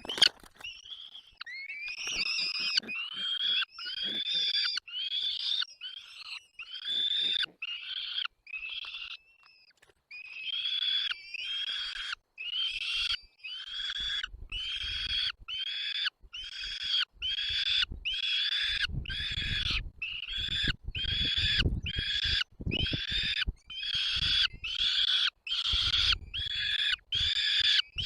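Bird nestlings giving a long series of begging calls, each a short arching call, repeated a little more than once a second.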